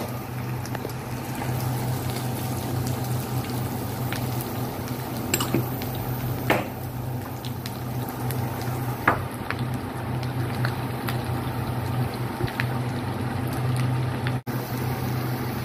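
Chopped onion and garlic sizzling in hot oil in a wok alongside fried pork pieces, steady throughout. A steady low hum runs underneath, and a few sharp clicks of a spatula against the pan stand out.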